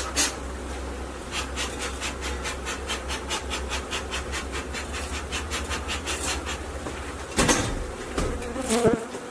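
Swarm of agitated honeybees buzzing, a defensive colony stirred up by the hive being opened, with louder surges about seven and a half and nine seconds in.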